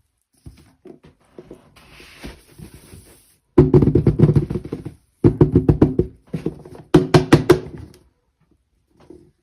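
Soft scattered rustling, then three loud stretches of music with steady tones and a fast clicking beat, each cutting off sharply.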